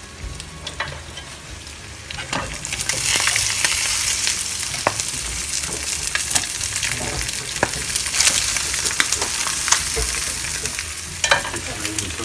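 Eggs frying in a skillet: a steady hissing sizzle with scattered crackles and pops, growing louder about two and a half seconds in.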